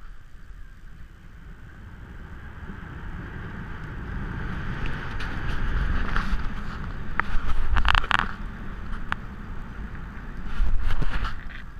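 Car driving on a snow-packed road: engine and tyre noise that grows louder over the first half as it picks up speed. Scattered sharp clicks and cracks come in the middle and again near the end.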